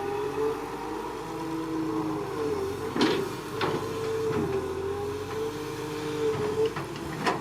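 Excavator engine and hydraulics running, with a steady whine that wavers slightly in pitch and a few sharp clanks about three seconds in and again near the end.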